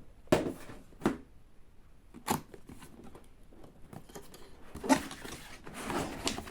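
Cardboard box being opened by hand: a few sharp clicks and taps spread out, then rustling of packaging near the end.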